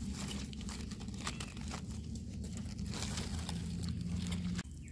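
Dry fallen leaves rustling and crackling as a wild mushroom is pulled by hand from the leaf litter and soil. A steady low hum runs underneath.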